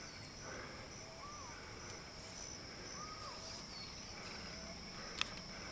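Countryside ambience: a steady, high-pitched insect trill runs throughout, while a bird repeats a short whistled call about every two seconds. A single sharp click sounds about five seconds in.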